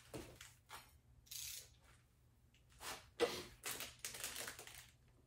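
A ratchet wrench clicking and metal tools clattering in several short bursts as the connecting-rod bolts on an LS V8 stroker bottom end are run down, the first step toward their 30 ft-lb torque.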